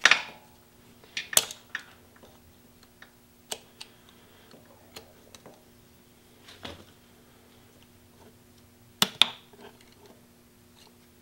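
Needle-nose pliers working at the timing viewport plug on a BMW R1100RT boxer engine, a stubborn plug: scattered sharp metallic clicks and scrapes of the jaws slipping and gripping, the loudest pair close together about nine seconds in, over a faint steady hum.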